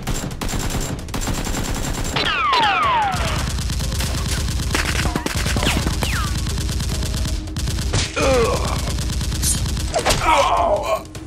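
Rapid automatic gunfire, a dense, steady stream of shots with no break.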